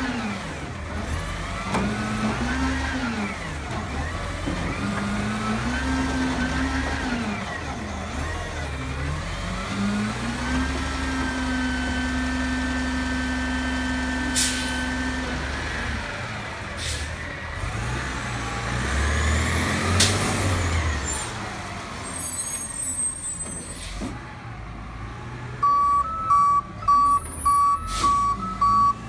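Heil front-loader garbage truck's diesel engine revving up and down again and again as the hydraulic arms lift a container, then held at high revs for several seconds while it is dumped over the cab. There is a sharp bang about two-thirds of the way in, and near the end the reversing beeper sounds about two beeps a second.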